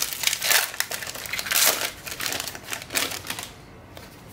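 A Magic: The Gathering booster pack's foil-lined wrapper being torn open and crinkled in the hands: a run of crackling rustles that stops about three and a half seconds in.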